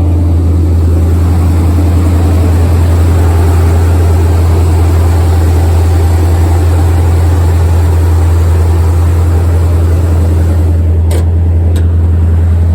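Truck engine running steadily through freshly installed Dynomax Race Bullet mufflers on headers and collectors, a loud, even, deep exhaust drone with no revving. Two faint ticks near the end.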